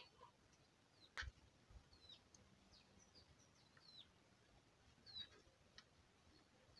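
Near silence with faint bird chirps: a few short, high, falling chirps spread through. There is one sharp click about a second in.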